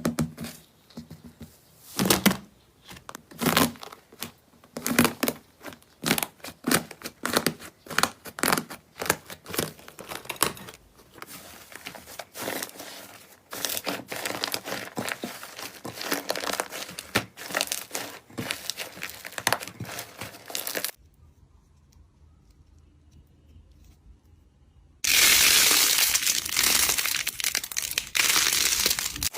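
Slime being squeezed and worked by hand, giving a run of irregular crackling, popping clicks. After a few seconds of near quiet, a loud, dense crackling hiss starts near the end.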